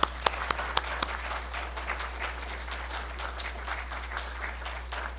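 Audience applauding, a few loud separate claps in the first second filling in to steady applause.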